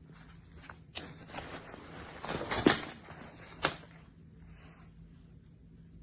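Hunting backpack being handled: fabric rustling and a few sharp clicks and knocks. The loudest comes about two and a half seconds in and another about a second later, then it goes quiet.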